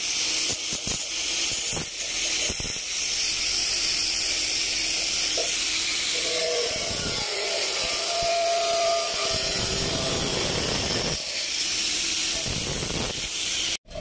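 Angle grinder with a thin cutting disc slicing through galvanized sheet-steel cable trunking: a steady, high hiss of the disc in the metal, with a whining tone for a few seconds around the middle.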